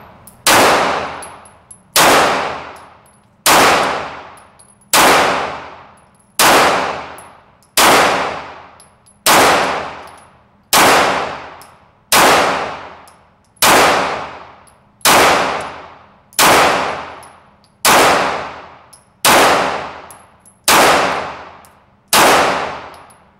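Glock 34 Gen 4 9mm pistol fired slowly and evenly, about sixteen single shots roughly a second and a half apart. Each shot echoes and dies away in an indoor range.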